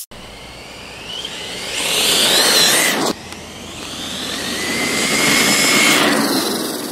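Traxxas 1/16 E-Revo RC truck's stock Velineon brushless motor and drivetrain whining, rising in pitch as it accelerates, over tyre noise. It comes in two runs, split by a sudden cut about three seconds in.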